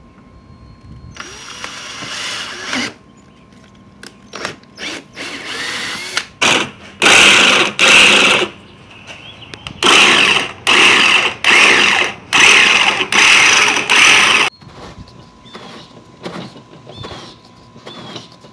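Cordless drill boring a pilot hole through the side of a plastic can, then an 18-volt Ryobi cordless jigsaw cutting a circular hole in the plastic in a run of short, loud bursts. Near the end come lighter clicks and scrapes as a threaded plastic fitting is turned into the new hole.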